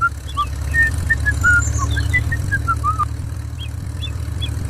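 Tractor engine running steadily with a low, even rumble, with short high whistle-like notes scattered over it.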